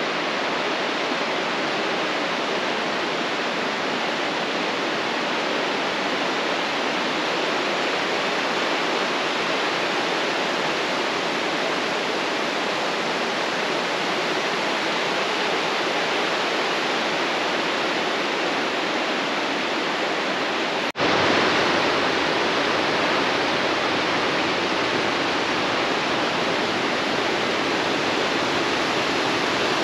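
Steady rushing of a mountain stream. About 21 seconds in there is an abrupt break, after which the rush is a little louder and deeper.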